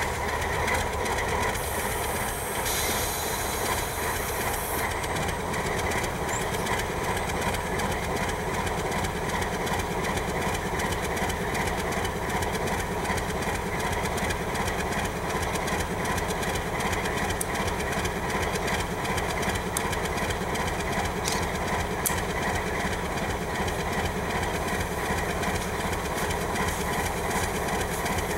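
Alco RS-3 diesel locomotive running steadily with its train, its engine sound mixed with the noise of wheels on rail.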